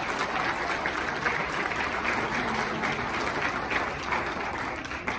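Audience applauding with steady, dense clapping that dies away right at the end.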